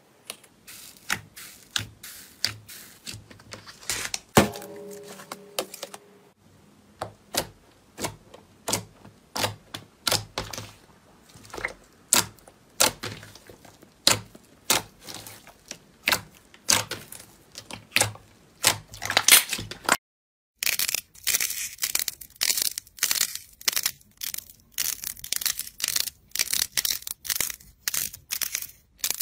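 Hands squeezing and poking thick slime, giving sharp wet pops and clicks of trapped air at irregular intervals, with one brief squeak. After a short break about two-thirds of the way through, a denser run of crisp crackling as soft foam-clay balls are pinched and crushed.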